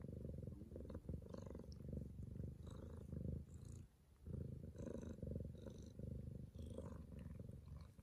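Bengal mother cat purring steadily, in long rhythmic phrases with brief breaks for breath, the longest about four seconds in.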